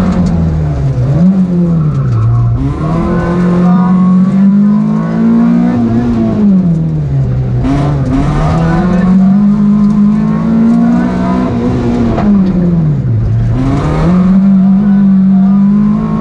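Fiat Seicento rally car's small four-cylinder engine heard from inside the cabin, driven hard on a stage: it revs up, holds high, then drops back sharply several times.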